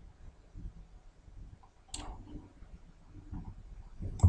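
Computer mouse clicks: one about two seconds in and a sharper, louder one near the end, over a faint low rumble.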